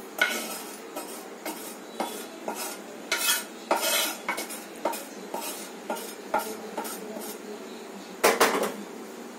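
Metal spoon scraping and clinking against a steel plate while stirring gram flour (besan) being lightly dry-fried, in irregular strokes about once or twice a second, with a few louder scrapes.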